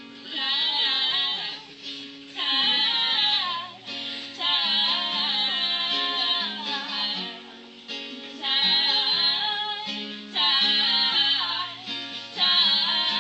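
Female voices singing over strummed acoustic guitar, in phrases of one to three seconds with short breaks between them.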